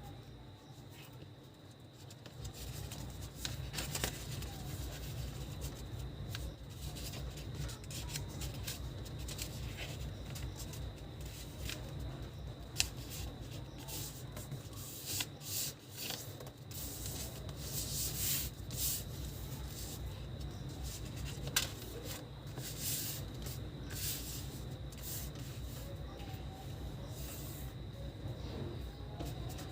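A sheet of paper being folded by hand: irregular rustles and the rub of fingers running along creases to press them flat.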